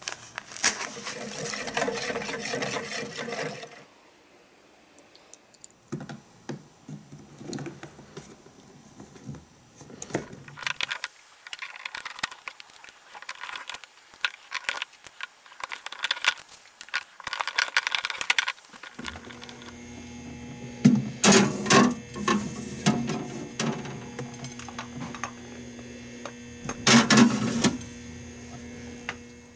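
A cardboard Jell-O box being torn open, with rustling and crinkling for a few seconds, then scattered small clicks and rustles of handling. In the last third a refrigerator hums steadily with its door open, and plastic egg-maker molds clatter loudly as they are set onto its shelves.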